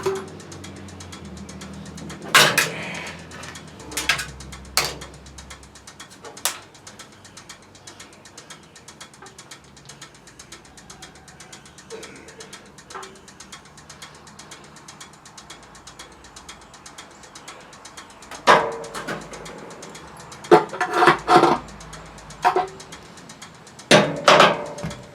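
Scattered metal clanks and knocks of tools and parts being handled: several single knocks in the first seven seconds, then a quick cluster of them in the last seven seconds.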